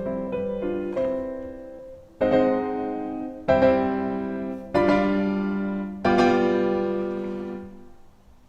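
Background instrumental music: a few short notes, then four sustained chords struck about every second and a half, each dying away, the last fading out near the end.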